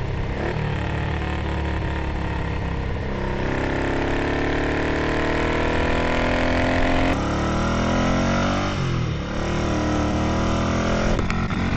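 1978 Ducati 900's bevel-drive L-twin under way, pulling up through the gears. The engine note climbs steadily for a few seconds and drops sharply at a gear change about seven seconds in. It then climbs again, with further dips at shifts around nine seconds and near the end.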